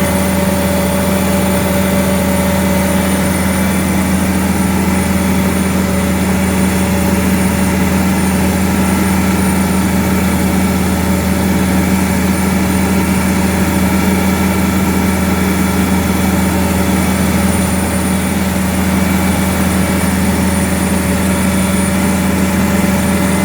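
Cummins N14 diesel engine running steadily at idle, with its turbocharger giving off a steady, high-pitched whistle over the low engine rumble.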